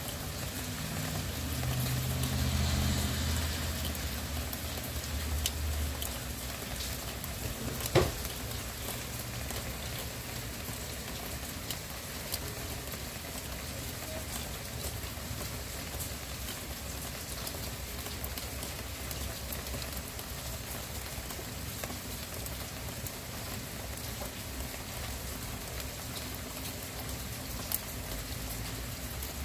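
Steady rain falling, an even hiss with scattered drop taps. A low rumble swells for a few seconds near the start, and about eight seconds in a single sharp tap stands out as the loudest sound, with a smaller one near the end.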